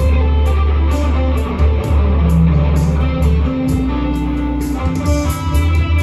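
Yellow Telecaster-style electric guitar improvising a lead line of held and changing notes, over a backing of steady low bass and an even cymbal beat.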